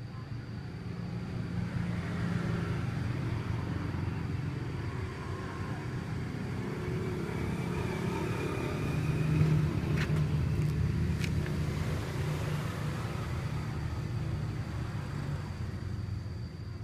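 Low, steady rumble of a motor vehicle running close by, building up, loudest about halfway through, then easing off. Two sharp clicks about ten and eleven seconds in.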